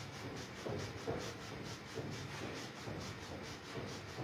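Faint rubbing and rustling of feet and clothing against a rug as a seated person flexes both ankles up and down, a few soft brushes less than a second apart.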